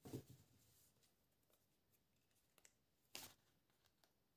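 Near silence, with faint rustles of tarot cards being handled, the clearest a brief one about three seconds in.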